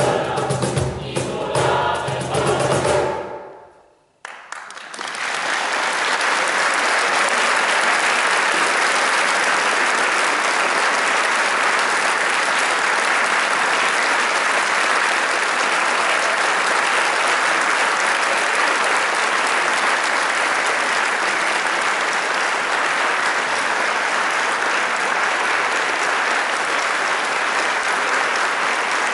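Mixed choir singing the last bars of a piece, ending on a chord that dies away about four seconds in. After a brief silence, a large audience breaks into steady, sustained applause.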